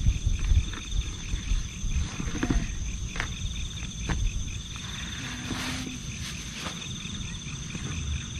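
Steady high chirring of insects, with a rapidly pulsing chirp under it, over low rumbling and a few sharp clicks and knocks from gear being handled close by.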